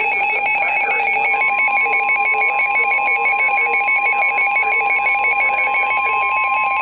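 Emergency alert tones from a weather radio. A fast-pulsing electronic ringing alarm is heard throughout. About a second and a half in, a single steady tone joins it, the NOAA Weather Radio warning alarm tone, which announces a warning about to be read.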